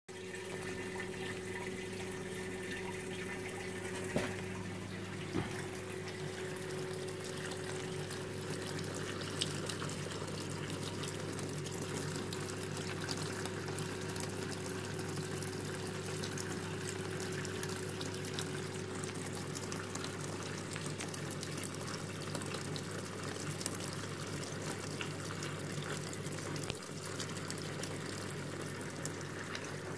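Würth Biomatic parts-washing fountain running: its circulation pump hums steadily while the cleaning fluid pours from the flexible nozzle and trickles over an aluminium intake manifold into the basin. A couple of light knocks come a few seconds in.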